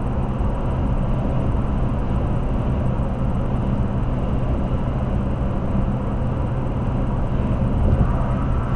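Steady road noise and engine drone inside a car cruising at highway speed.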